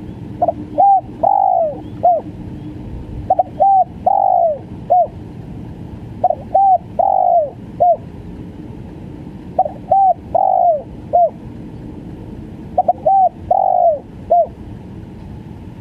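Spotted dove (tekukur) singing its stuttering 'gagap' coo. Each phrase is two or three short quick coos, then a long falling coo and one short closing coo. The phrase comes five times, about every three seconds.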